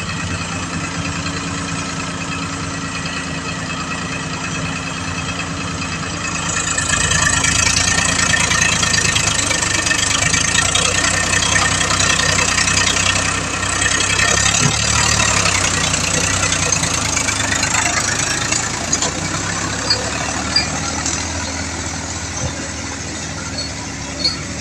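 Powertrac Euro 50 tractor's diesel engine running, revved up about six seconds in and held high for roughly ten seconds, then easing back to a steadier run. A few short knocks come near the end.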